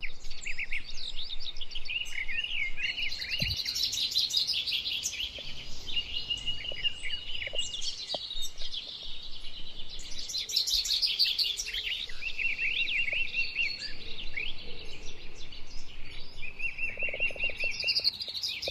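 Several songbirds singing together, with quick high chirps and trills overlapping throughout.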